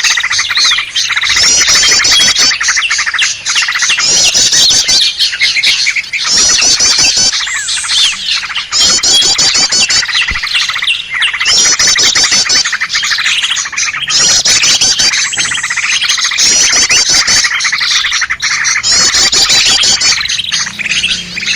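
Dense, continuous chorus of small songbirds mixed as a lure call: prinias and bulbuls chattering and calling. A fast high trill comes back about every two seconds over the busy calls.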